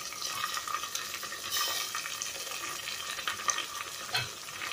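Oil sizzling steadily in an aluminium pressure cooker as freshly added chopped tomatoes fry with onions, green chilies and curry leaves, with scattered small crackles.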